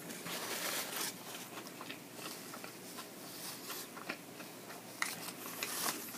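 Close-up chewing of a mouthful of fast food, with small crackles and soft rustling from a paper tissue and a foil wrapper being handled. It is a little louder in the first second and again near the end.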